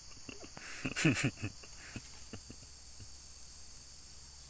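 A steady high-pitched insect chorus of crickets or cicadas, with a short, louder voice-like call about a second in and a few faint clicks after it.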